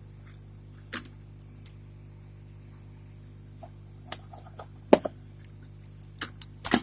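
Scattered sharp clicks and knocks from handling hardware on a workbench, with a quick cluster of clicks near the end, over a steady low hum.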